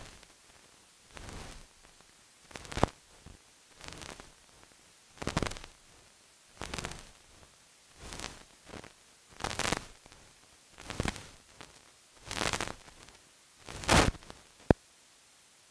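Regular bursts of crackling hiss, about one every second and a half, with a single sharp click near the end: noise from the transfer of a silent film print, with no recorded sound of its own.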